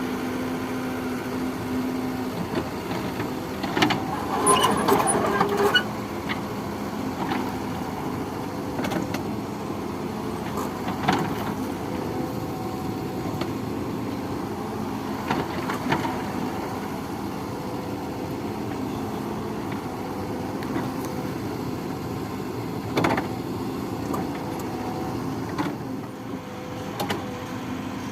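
Excavator's diesel engine running steadily, with scattered clanks and knocks from the machine at work, a louder cluster of them about four to six seconds in.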